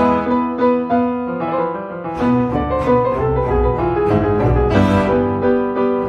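Classical music: piano playing a run of notes over low bowed strings.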